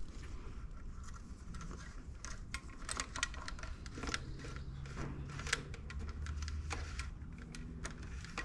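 Scattered light clicks, taps and rattles of hands handling and feeding a power wire along a Power-Pole's hydraulic tube, over a low steady background rumble.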